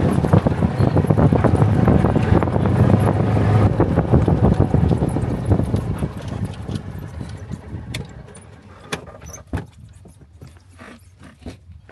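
Golf cart in motion: a low rumble and rattle with wind buffeting the microphone, dying away over the second half as the cart slows to a stop, leaving a few sharp clicks near the end.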